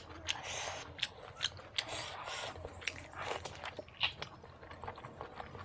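Close-up chewing and biting of spicy pork: irregular sharp wet mouth clicks, several a second, with a few short hissy stretches in between.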